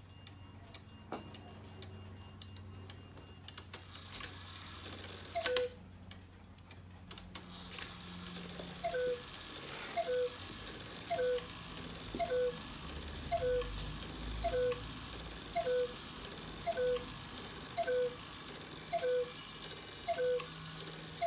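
Beha model 558 cuckoo clock calling: the bellows-driven two-note cuckoo, a higher note then a lower one, repeated about once a second roughly a dozen times. Before the calls begin there are a few light clicks of handling.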